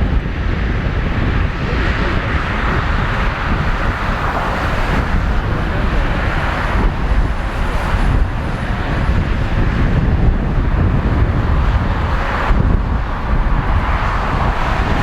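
Jet airliner engines running, a steady, loud rumbling noise with a hiss above it.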